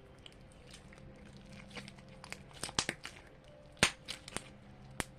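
Glossy slime being kneaded and mixed by hand with a second slime, giving off irregular sticky clicks and pops, the loudest about four seconds in.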